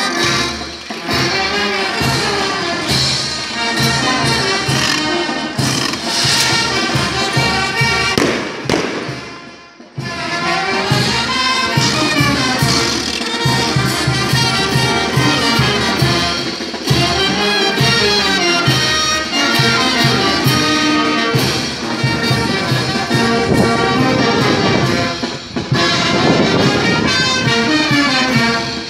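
Brass band playing negritos dance music. The music drops away briefly about nine seconds in, then comes straight back in.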